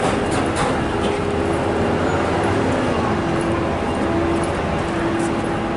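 Steady outdoor street noise with traffic: a constant even rush of sound with faint passing tones.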